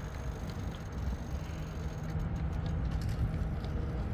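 Bicycle riding noise: a steady low rumble of tyres rolling on paved street, a little louder from about one and a half seconds in.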